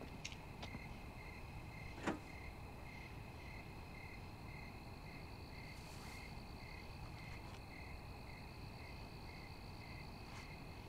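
Night ambience of crickets chirping in a steady rhythm, about two chirps a second, over a faint steady high insect drone. A single sharp click sounds about two seconds in.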